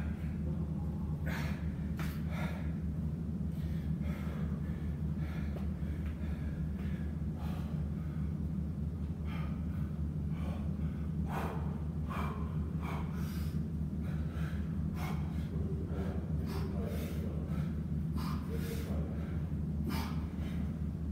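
A man breathing hard from exertion during dips and chin-ups, with repeated sharp gasps and exhales, over a steady low hum.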